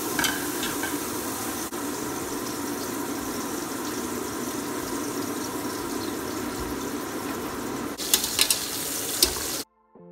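Steady sizzling of frying in oil in a large aluminium pot on a gas stove, with a few sharp clinks near the end.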